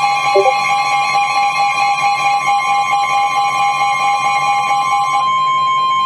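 Emergency alert attention tone: a steady, loud electronic tone that announces a National Weather Service warning. A lower second tone drops out about five seconds in, leaving one steady tone.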